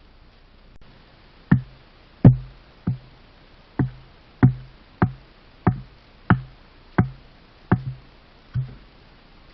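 About eleven hard blows on wood, evenly paced at roughly three every two seconds, each a sharp knock with a dull thud. They begin about a second and a half in and stop shortly before the end.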